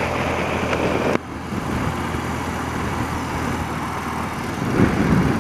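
Wind rushing over a helmet-mounted microphone while riding, with a BMW motorcycle's engine running steadily underneath. The wind noise drops off suddenly about a second in.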